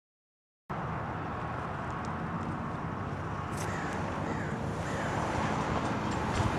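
Rumble of an approaching Metrolink commuter train with wind on the microphone, cutting in suddenly after a moment of silence and slowly growing louder.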